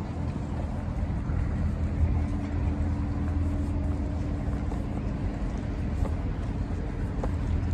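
An engine running steadily with a low drone, its pitch holding even.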